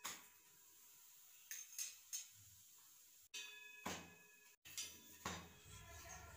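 Scattered light clinks and taps of kitchen utensils on an iron tawa and steel plates while a paratha is turned and moved, about half a dozen short knocks in all.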